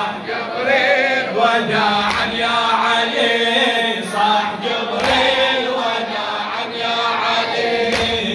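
Male mourners chanting a Shia latmiyya lament together, with a heavy thud about every three seconds from collective chest-beating (latm).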